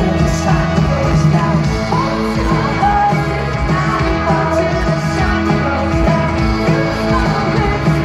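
Live indie folk-rock band playing with a lead vocal, heard loud through a festival PA from within the audience.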